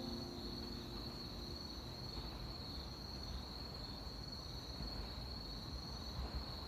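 Chorus of autumn insects, crickets among them, singing one steady, unbroken high trill, over a faint low rumble.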